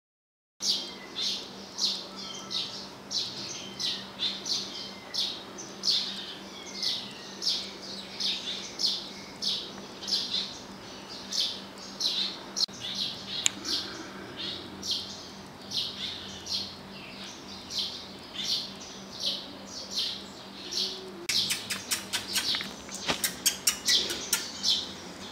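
Bird chirping, short high-pitched chirps about twice a second, over a steady low hum. A rapid run of sharp clicks joins in near the end.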